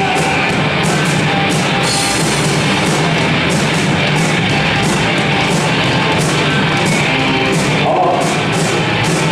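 Live rock band playing a loud instrumental passage between sung lines: distorted electric guitar over a steady drum beat with cymbal hits.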